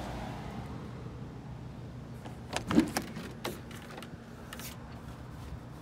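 The driver's door of a 1992 Land Rover Defender 90 being opened: a cluster of sharp metal latch clicks and a knock near the middle, the loudest with a dull thud, then a few lighter clicks.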